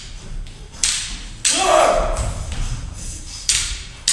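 Stage swords clashing in a choreographed sword fight: three sharp clacks, the first two about half a second apart and the third about two seconds later, each with a brief ring or echo after it.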